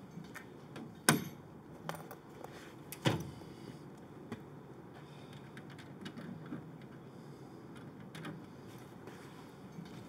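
Latches and hinged doors of metal bird-transport boxes clanking: two sharp bangs, about a second and three seconds in, with lighter clicks and rattles between and after.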